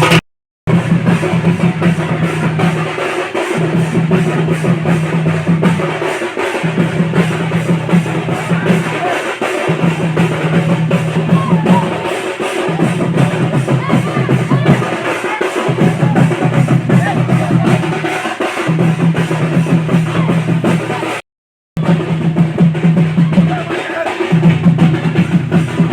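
Loud music with a heavy drum beat and deep, repeating bass. It cuts out completely for a moment twice: once near the start and once about four-fifths of the way through.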